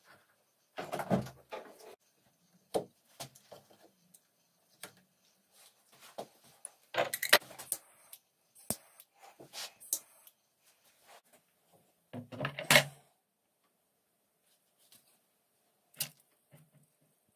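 Hand saddle-stitching of leather held in a wooden stitching pony: scattered clicks and rasps as the needles are pushed through the stitching holes and the thread is pulled through, with louder bursts of handling about a second in, about seven seconds in and about twelve seconds in.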